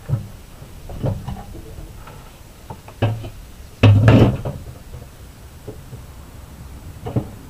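A few scattered wooden knocks and bumps, the loudest a heavier clatter about four seconds in.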